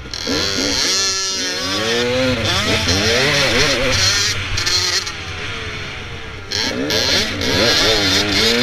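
Dirt bike engine revving up and down as the rider works the throttle and shifts along a dirt trail, heard close from the rider's helmet. It eases off about five seconds in, then pulls hard again a second and a half later.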